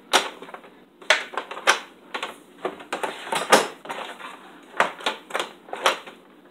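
Irregular plastic clicks and knocks, about a dozen sharp ones, as removable parts of a Breville espresso machine are handled, fitted and set down.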